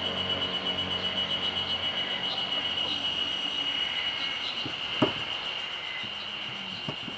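Insects buzzing steadily at a high pitch, pulsing several times a second, with a single sharp click about five seconds in.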